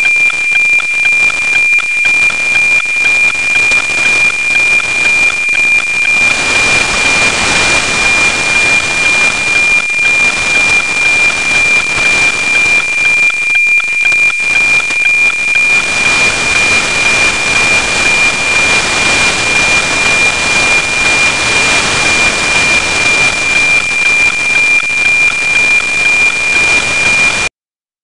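NOAA 19 weather satellite APT signal on an FM radio receiver: a steady 2400 Hz tone with a regular tick-tock about twice a second, buried in heavy white-noise hiss. The satellite is low on the horizon, so the signal is weak and noisy. It cuts off abruptly just before the end.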